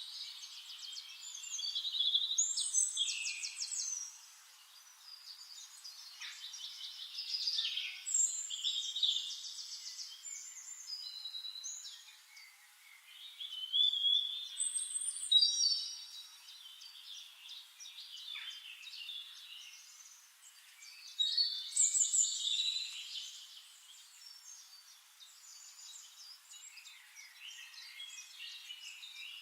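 Songbirds singing: repeated phrases of rapid trills, chirps and whistles, with quieter stretches between. The sound is thin and high, with no low background sound.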